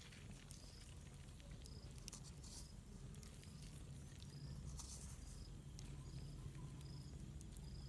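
Faint insect chirping: a short high chirp repeating about every three-quarters of a second, over a steady low rumble, with a few scattered clicks.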